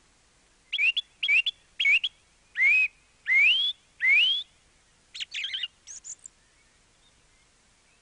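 Bird song: three short two-part chirps, then three longer whistled notes that each rise in pitch, followed about five seconds in by a quick rattled phrase and a few faint high notes.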